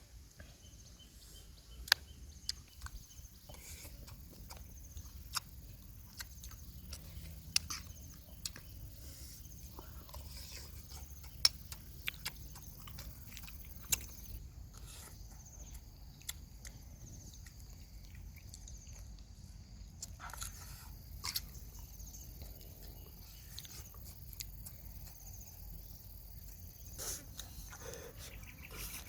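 Eating sounds: chewing and crunching, with scattered sharp clicks and taps.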